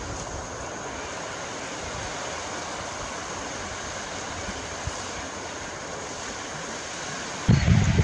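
Steady rushing of a river over rapids. Near the end a much louder low rumble cuts in suddenly.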